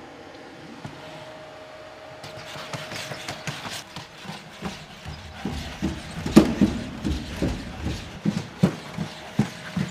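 Boston Dynamics four-legged robot's feet knocking on wooden stairs and floor as it walks, a few hard knocks a second that grow louder from about halfway, over a faint mechanical hum at the start.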